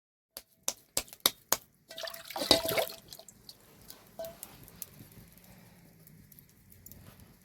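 Water dripping and splashing: five sharp drops about a third of a second apart, then a splash lasting about a second.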